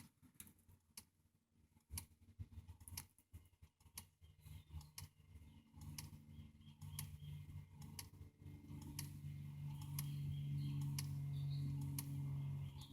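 Faint scattered clicks from handling an OBD-II code scanner being hooked up and its buttons pressed, with a low steady hum coming in about six seconds in and growing louder later on.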